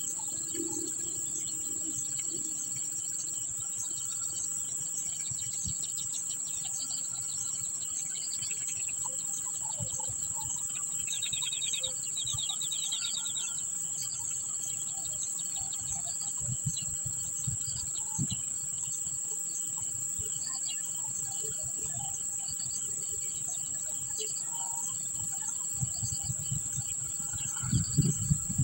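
Steady high-pitched drone of insects, with scattered bird chirps over it and a rapid bird trill about eleven seconds in. A few low thumps near the end.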